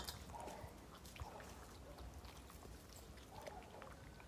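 A small dog eating from a plastic bowl: faint, scattered little clicks and taps of its mouth and food against the bowl.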